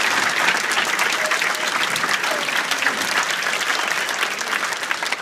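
Large seated audience applauding, many hands clapping at once, the clapping easing off slightly toward the end.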